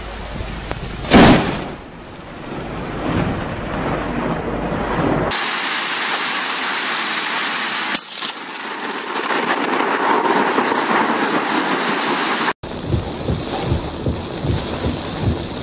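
Thunderstorm: a loud, sharp thunderclap about a second in, followed by rumbling thunder. Then the steady hiss of heavy rain with a brief sharp crack partway through, and near the end heavy rain and wind beating on a car's windscreen.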